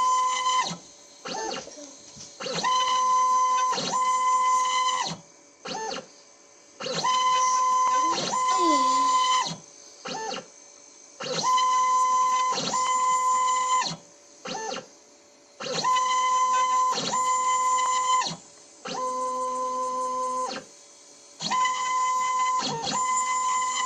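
Stepper motors of a homemade two-axis CNC pen plotter whining at steady pitches in bursts of one to two seconds, with short pauses between moves, as the machine drives a felt-tip pen across paper. One falling glide in pitch comes about a third of the way through.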